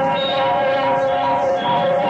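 Live rock music: sustained chords held steady, with higher notes changing above them a few times.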